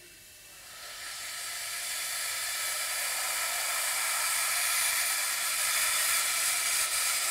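Steam hissing loudly and steadily from the cylinder drain cocks of the B.F.D. 3 steam locomotive, swelling up about a second in: the cocks blown open to clear condensed water from the cylinders.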